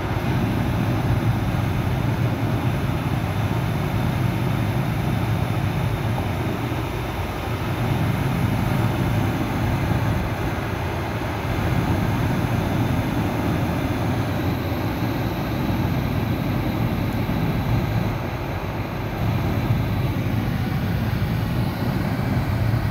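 Steady rush of air streaming over a glider in flight, heard inside the cockpit under the canopy.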